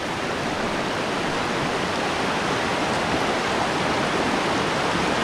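Steady rushing of running water, as from a stream or river, an even hiss without breaks.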